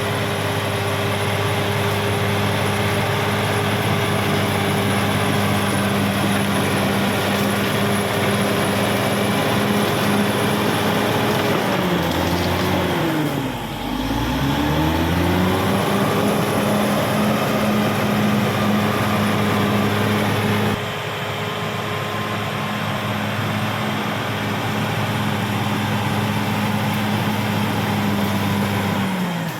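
Caterpillar D6R XL bulldozer's diesel engine running steadily at working revs; about halfway through its pitch dips sharply and climbs back within a couple of seconds.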